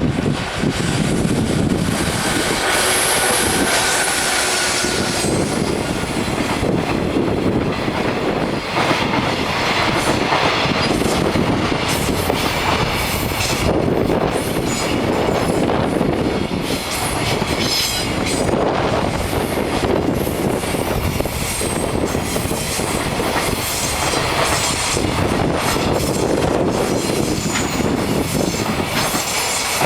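Freight train hauled by an EF66 electric locomotive passing close by at speed: a long run of wagons rolling past with a steady rumble and the clickety-clack of wheels over rail joints.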